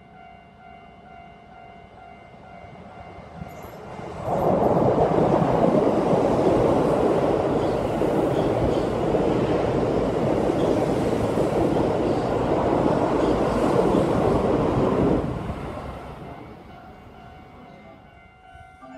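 Keihan Electric Railway train running past the platform. It grows louder, jumps sharply about four seconds in as the cars reach the microphone, and stays loud for about eleven seconds while they go by, then fades away.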